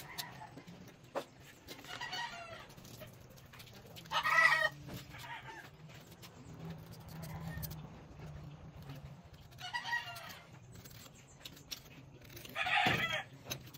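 Chickens calling in a farmyard: four short calls, the loudest about four seconds in, others around two, ten and thirteen seconds in.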